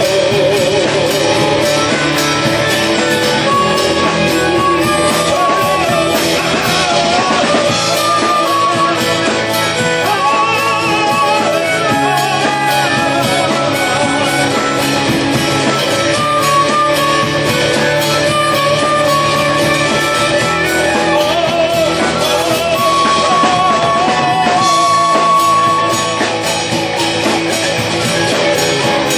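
Live rock band playing: strummed acoustic guitar, electric guitar, drum kit and harmonica, with a man singing over them.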